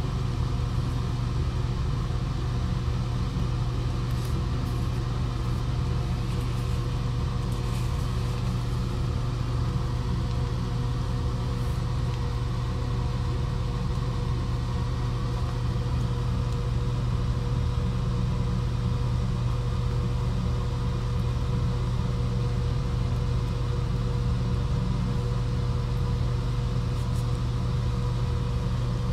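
Steady low mechanical hum with a faint higher tone above it, unchanging in level.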